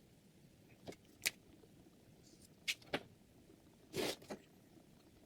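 A string of about six short, separate clicks and knocks, like objects being handled and set down. The loudest, about four seconds in, is a slightly longer rasp.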